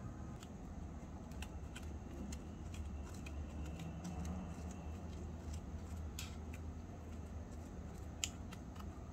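Small metal spoon clicking and scraping against a miniature steel bowl while stirring milk into crumbs, faint and irregular, with a sharper click about eight seconds in.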